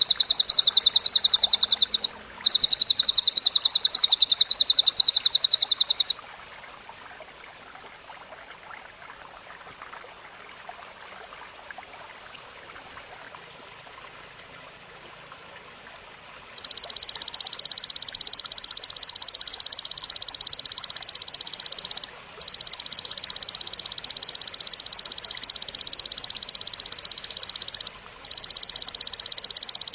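Looped recording of cililin song and grasshopper (belalang) stridulation used as songbird training material. A loud, fast, very high trill runs for the first six seconds, with a short break about two seconds in. After a stretch of faint hiss, a loud, dense, lower buzzing trill starts about 16 seconds in and carries on, cut off briefly twice.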